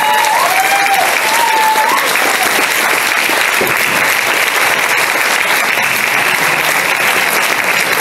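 Audience applauding steadily, with a few voices heard over the clapping in the first two seconds.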